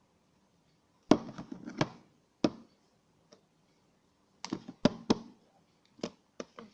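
Handling noise from the slime-making supplies: clusters of sharp clicks and knocks, about a dozen in all in four groups, as small containers and utensils are picked up, opened and set down.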